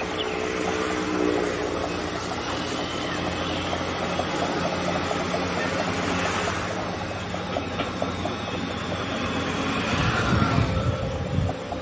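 Diesel engines of tracked earthmoving machines running steadily, with a light rhythmic clatter of steel crawler tracks. Near the end, wind buffets the microphone.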